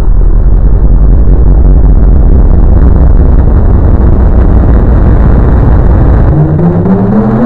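Very loud, distorted low rumble with a rough noisy haze above it. Near the end the rumble drops away and a melody of short stepped notes comes in.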